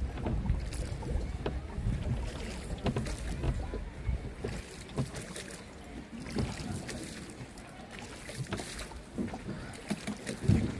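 Canoe paddle strokes: irregular splashes and knocks of the paddle in the water, with wind rumbling on the microphone, heaviest in the first few seconds.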